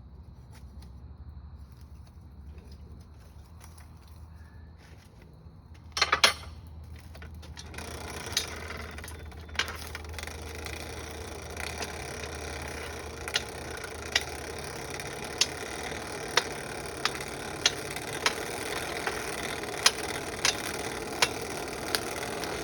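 Blacksmith's forge running with a steady low hum. There is a loud short clatter about six seconds in, then a rushing noise that builds and carries sharp ticks roughly once a second.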